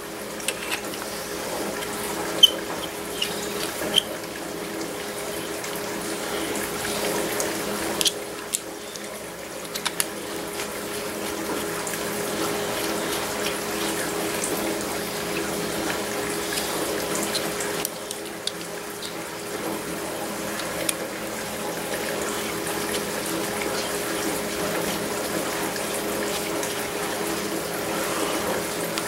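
A steady rushing hiss with a low hum runs throughout. A few sharp metallic clicks come and go, the T-handled Allen wrench and pipe plugs knocking against the cast-iron touch control housing as the plugs are run in.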